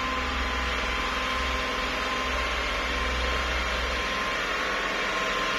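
Diesel engine of a loaded dump truck running steadily under load as it climbs a muddy dirt track, with a low rumble that eases about four seconds in.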